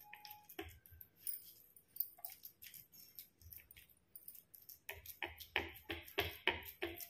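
Faint clicks, taps and light jingling of hands pressing potato stuffing into a capsicum ring on a plastic plate. The clicks come quicker and a little louder from about five seconds in.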